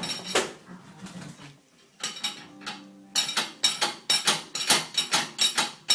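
A spoon clattering and knocking in a dishwasher: a few sharp ringing strikes at first, then from about halfway on a quick run of loud clinks, about three a second.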